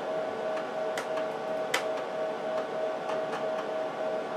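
Steady hum and whine of a running HP 54845A oscilloscope, its cooling fans turning at an even pitch, with a few sharp clicks, the loudest about two seconds in.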